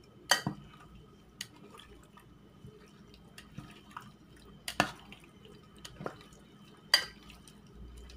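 Metal tongs clinking and scraping against a glass mixing bowl while tossing raw chicken pieces in a dry coating: a few sharp clinks a second or more apart, the loudest about five and seven seconds in, with soft scraping between.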